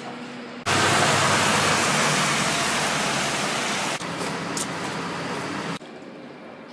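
Car traffic on a wet street: a loud, steady rush of tyre spray with a low engine hum starts abruptly, then drops to a quieter rush about four seconds in, and fainter still near the end.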